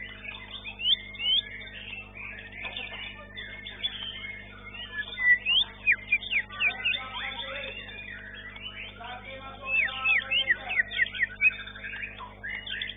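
Several white-rumped shamas (murai batu) singing at once in competition: quick sharp whistles, sweeps and rapid rattling phrases, thickest about ten seconds in. A low steady hum runs underneath.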